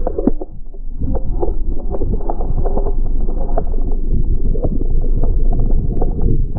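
Muffled rush and splashing of choppy sea water against a small boat's hull as it runs through rough waves, dull and without treble, with many small knocks and slaps throughout.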